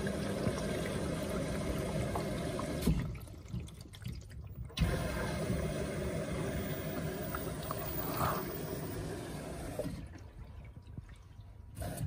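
LG F14WD84EN0 washer-dryer taking in water: a steady rush of running water that drops away about three seconds in, comes back abruptly nearly two seconds later, and fades near the end.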